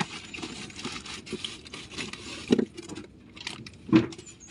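Wet fish being handled and dropped into a plastic bucket already full of fish, with scraping and rubbing against a styrofoam cooler. Two louder thumps come about two and a half and four seconds in.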